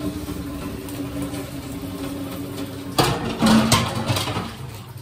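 Dishes being washed by hand at a kitchen sink: a steady machine-like hum, then steel utensils and pans knocking and clattering several times from about three seconds in.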